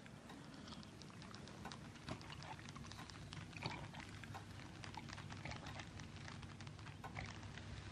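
A man drinking a glass of milk down in one long drink: faint, irregular swallowing clicks over a low room hum.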